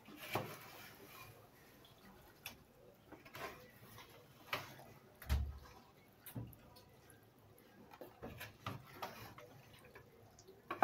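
Spatula stirring thick chicken and potato curry in a metal pot: irregular soft clicks and knocks against the pot with wet squelching of the gravy, and a dull thump a little past five seconds in.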